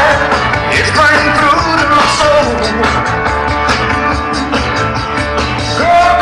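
Rock song with singing over guitar and a steady beat, played over the loudspeakers of a fireworks display.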